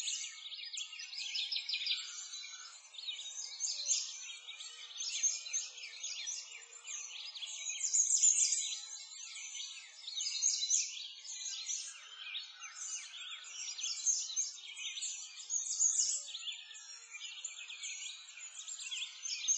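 A dense chorus of many small birds chirping and twittering, swelling and fading every couple of seconds.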